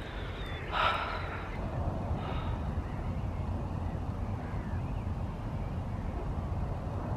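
Wind buffeting the microphone with a steady low rumble, and a woman breathing out audibly about a second in.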